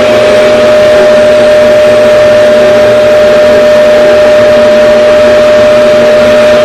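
RevAir reverse-air hair dryer running: a loud, steady rush of suction airflow with a motor whine held at one pitch.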